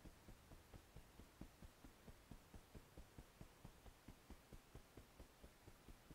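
Fingertips tapping the side of the ribcage under a raised arm through a cloth top: EFT tapping on the underarm point, a faint, even run of light taps about five a second.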